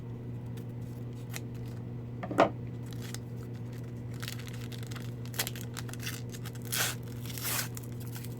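Hockey card pack wrappers being torn open and crinkled: a sharp snap about two seconds in, then several short rustling tears in the second half. A steady low hum runs underneath.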